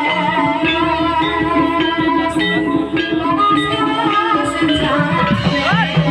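Live ebeg accompaniment music: a gamelan-style ensemble of pitched, ringing instruments playing continuously, with many notes struck in quick succession.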